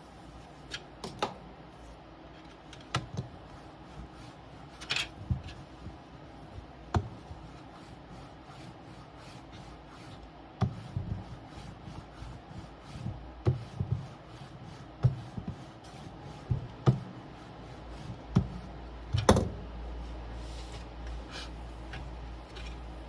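Scattered light taps, clicks and knocks of hand tools and parts being handled on a workbench during LCD polarizer film fitting, irregular and a second or two apart. A low steady hum comes in after about eighteen seconds.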